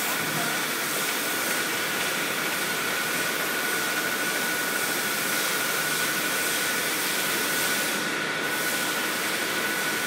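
Bottled-water packing line running: the bottle conveyor and shrink-wrap packing machine make a steady machine noise with a constant high whine.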